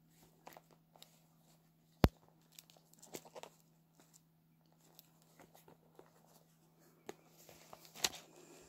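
Small handling noises: scattered clicks, taps and rustles as items are taken out of a small purse, with one sharp click about two seconds in, over a faint steady hum.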